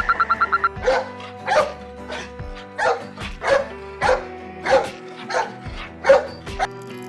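A dog barking repeatedly, about nine barks roughly half a second or more apart, over background music. A rapid pulsing animal call cuts off just under a second in, before the barking starts.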